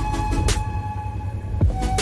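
Background music: electronic track with a deep bass beat, held synth notes and sharp percussion hits about twice a second.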